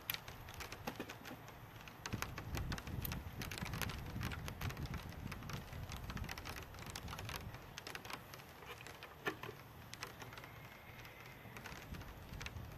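Irregular light clicks and taps of wooden beehive parts being handled and set in place, over a steady low rumble.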